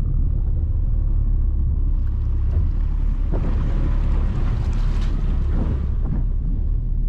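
Motorboat underway: a steady low drone of the motor and wind on the microphone, with water rushing past the hull adding a hiss from about two seconds in.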